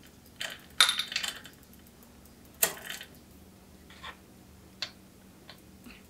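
Bicycle chain links clinking and rattling as the chain is handled and fed through the rear derailleur: a jangling cluster about a second in, a sharp clink near three seconds, then a few lighter clicks.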